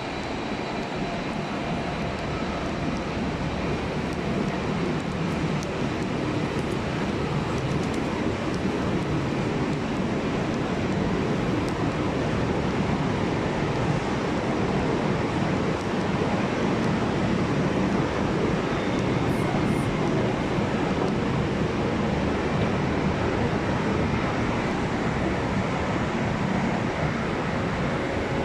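Steady low rumble of a large railway station's ambience, an even noise with no single event standing out.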